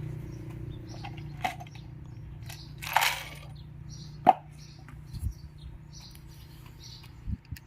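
Scattered clicks, a short scrape and light knocks of hand work on an electric fan's parts and screws during reassembly, over a low steady hum.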